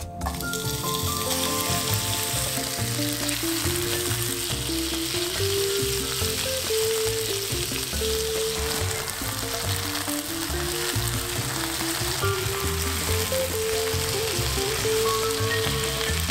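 Chicken pieces sizzling in hot vegetable oil in a non-stick frying pan, the sizzle starting suddenly as the raw chicken hits the oil and then running on steadily while a silicone spatula stirs the pieces. Background music plays underneath.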